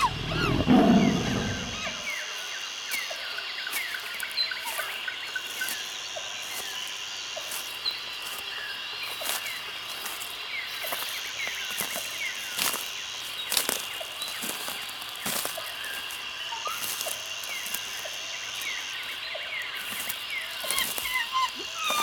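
Rainforest ambience: a steady high insect drone, with a still higher buzz that comes and goes in stretches of a couple of seconds, many short chirping bird calls and scattered clicks and ticks. It opens with a deep low rumble lasting about two seconds, the loudest sound in the stretch.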